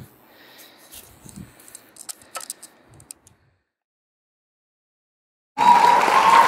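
Faint scattered clicks and ticks in a quiet room, then a couple of seconds of dead silence. About five and a half seconds in, loud applause with whistling starts suddenly.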